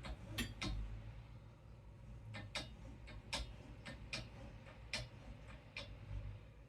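A series of sharp, irregularly spaced clicks and ticks, about ten in all, from a tension-mounted dance pole being tightened against the ceiling.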